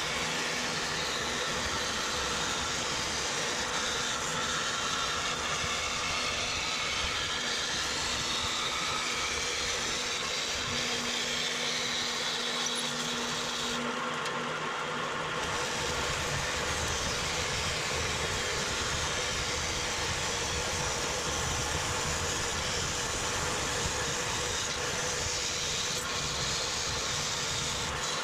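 Vertical bandsaw running steadily, its blade cutting through aluminum angle stock.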